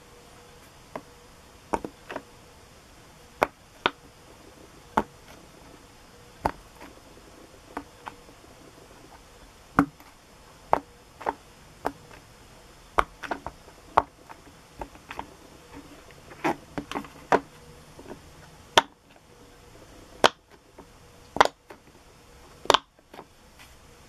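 Silicone pop-it fidget toy bubbles being pressed in one at a time by a finger, each giving a short pop. The pops come irregularly at about one a second, with the loudest few near the end.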